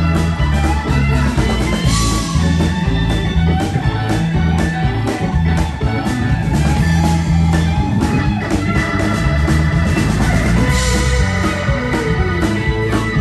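Live rock band playing an instrumental passage: electric guitar, electric bass and drum kit, with keyboards, a steady beat and a strong bass line.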